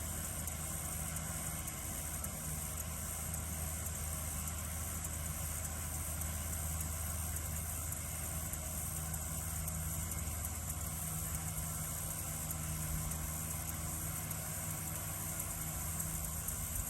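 Tractor engine running steadily in a hay field, a low even hum, with a steady high chorus of crickets over it.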